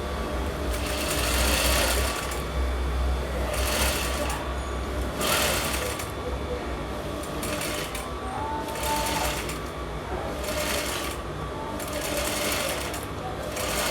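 Electric sewing machine stitching fabric in short runs that start and stop every second or two, with brief pauses between runs.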